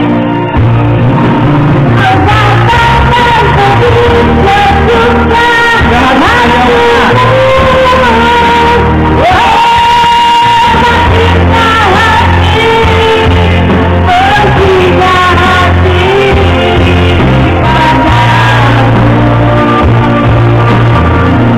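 Singing into a handheld microphone over loud amplified backing music through a PA system, with strong steady bass notes underneath.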